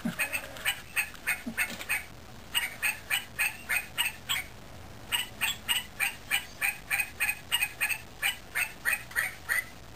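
A tune sung in short, high, clipped notes, about three a second, in phrases with brief pauses, voicing the two dog puppets' singing.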